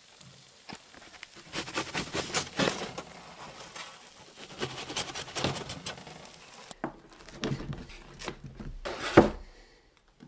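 Irregular clattering, knocks and scraping of cookware and utensils being handled while a pizza is taken off and served. One sharp knock stands out a little after nine seconds.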